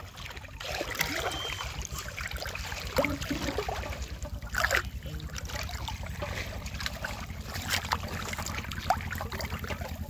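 Shallow pond water sloshing and splashing around a person wading through it and pushing a metal pot along the surface, with several sharper splashes.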